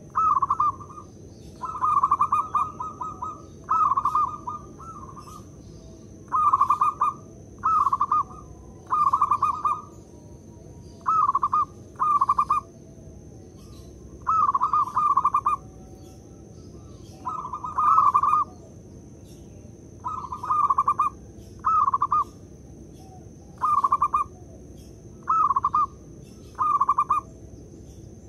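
Zebra dove (perkutut) cooing: short repeated phrases, about one every two seconds, with a faint steady high-pitched whine behind them.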